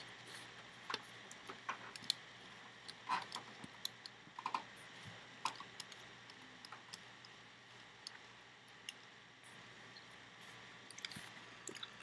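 Faint, irregular clicks and taps of fingers and rubber bands on a plastic Rainbow Loom's pegs as bands are wrapped around a peg.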